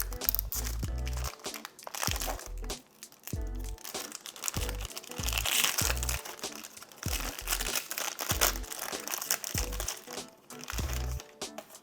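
Plastic or foil wrapping of a new instant-film pack crinkling as it is handled and unwrapped, over background music with a bass beat.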